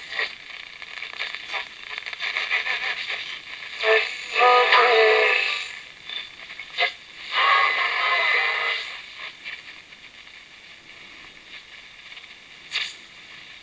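A medium-wave AM broadcast playing through a small transistor radio's speaker, thin-sounding with almost no bass, in stretches that break off. About nine seconds in the programme sound drops away, leaving faint static hiss with one short burst near the end.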